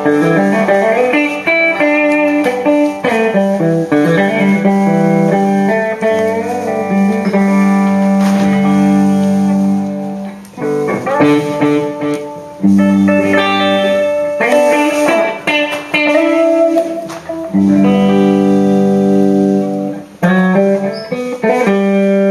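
Guitar played during a band's sound check: picked melodic phrases over held low notes, with a couple of brief pauses between phrases.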